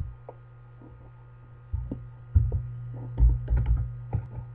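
Slow, irregular keystrokes on a computer keyboard, a few separate taps with pauses between them, over a steady low electrical hum.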